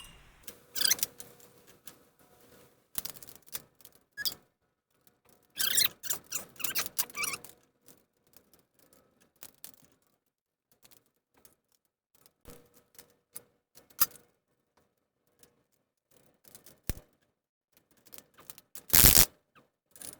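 Wrench work on metal bolts: irregular clicks, clanks and squeaks as the crane's mounting bolts are tightened, with short bursts of rapid clicking around 6 to 7 seconds in and a loud one near the end.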